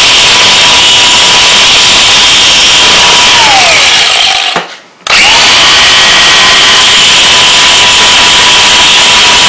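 Angle grinder grinding the flare off a steel front sight pin: a steady high whine over harsh grinding noise. About three and a half seconds in the motor winds down, its pitch falling, and after a brief silence it starts up again near five seconds and grinds on steadily.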